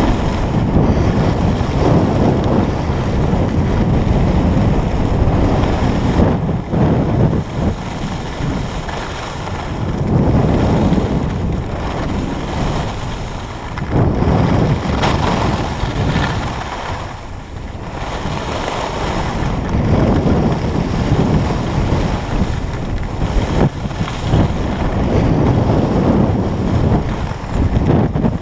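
Wind rushing over a skier's action-camera microphone during a downhill run, a loud low rumble that swells and eases every few seconds.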